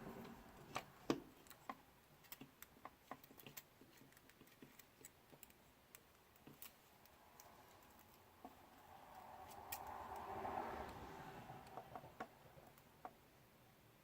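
Quiet, scattered small clicks and taps of hands handling tiny parts and tools, with a soft rushing noise that swells and fades around ten seconds in.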